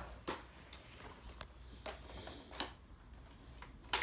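Scattered light plastic clicks and knocks as a Nerf Fortnite AR-L toy blaster and its magazine are handled, with a louder sharp click at the very end.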